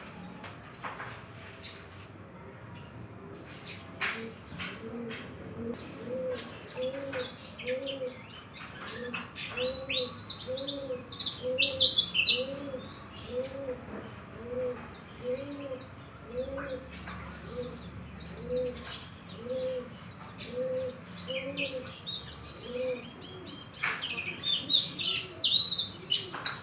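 Caged white-eyes (pleci) chirping, with two loud runs of rapid high twittering song. Through the middle a low note repeats steadily, about one and a half times a second.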